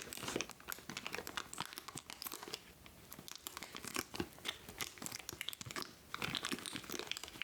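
Plastic packaging bag crinkling and crackling as it is handled, with a dense, irregular run of small crackles. It is most likely the keyboard cable's bag.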